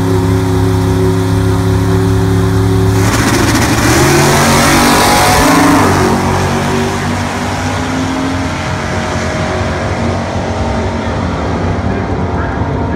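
Drag-racing car engines, one of them a 1968 Plymouth Sport Satellite, held at steady high revs on the starting line, then launching at full throttle and accelerating hard down the strip. The sound is loudest about four to six seconds in, then eases as the cars pull away.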